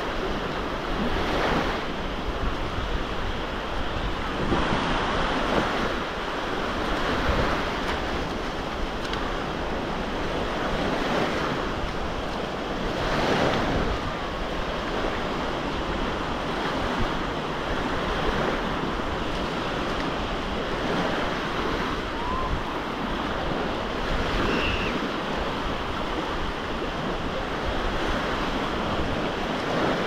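Black Sea surf washing onto the beach, a steady hiss of breaking waves that swells every few seconds, with wind rumbling on the microphone.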